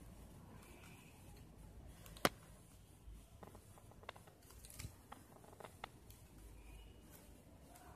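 Flat plastic basket-weaving wire being handled and pulled through knots: faint rustling, with one sharp click a little over two seconds in and a few lighter clicks after it.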